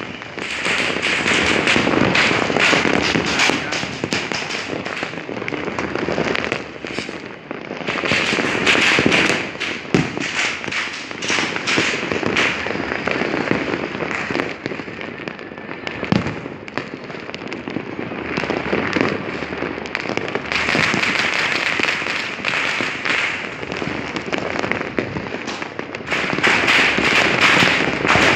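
Fireworks and firecrackers going off in many places at once: a dense, unbroken crackle of overlapping bangs and pops that swells louder several times.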